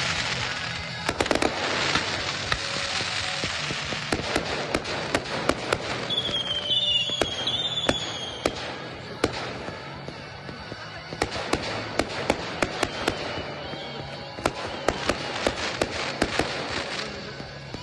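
Professional fireworks display: a dense, continuous crackle of sharp pops and bangs from bursting shells, with a whistling effect gliding in pitch about six to eight seconds in.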